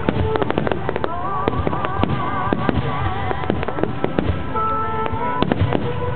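Aerial fireworks shells bursting in rapid succession: many sharp bangs and crackles close together. Wavering held tones sound over them from about a second in, and again in the second half.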